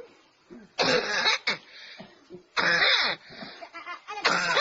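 A person coughing three times, each cough a loud burst, about a second and a half apart: a smoker's cough.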